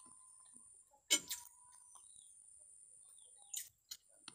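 Eating sounds: a sharp mouth smack about a second in and a couple of softer clicks near the end, over a faint steady high-pitched whine.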